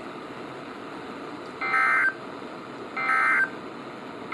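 Emergency Alert System SAME digital data bursts from NOAA Weather Radio: short, harsh warbling squawks about half a second long and a second and a half apart, over faint receiver hiss. Two come in the middle and a third begins at the very end. Their brevity, just after the warning text, marks them as the end-of-message signal that closes the alert.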